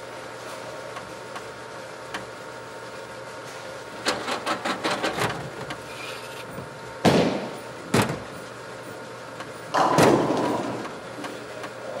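Bowling alley ambience over the steady hum of the lane machinery and ball return. About four seconds in comes a quick rattle of clattering knocks, then two heavy thuds about a second apart, then a louder crash with a ringing tail, the clatter of balls and pins.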